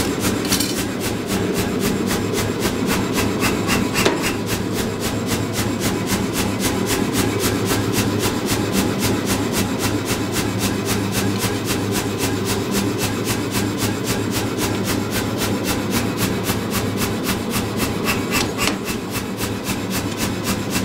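Say-Mak self-contained air power hammer running with its ram held up and not striking: a steady, fast rhythmic chuffing from its built-in compressor over a motor hum. There is a single metal clank about four seconds in.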